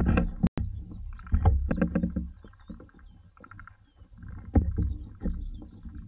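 Footsteps on a wooden boardwalk: irregular thuds and knocks of boots on planks as a hiker walks along.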